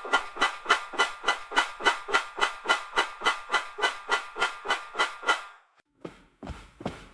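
Dishwasher running, heard through a wall: a rhythmic pulsing about four or five times a second. It stops about five and a half seconds in and, after a short pause, comes back deeper and heavier.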